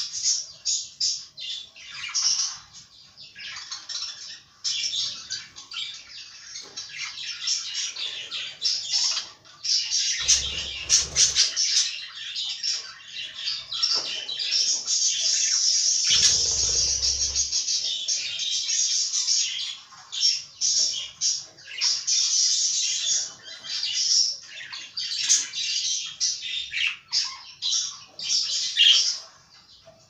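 Several budgerigars chattering and warbling without pause, a fast stream of high chirps and squawks. Two short low rumbles come through, about ten and sixteen seconds in.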